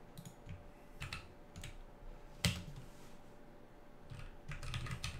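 Computer keyboard typing: scattered keystrokes, one sharper click about halfway, then a quick run of keys near the end.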